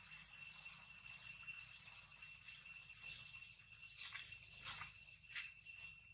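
Forest insects making a steady, high-pitched drone, with a few short clicks or rustles between about four and five and a half seconds in.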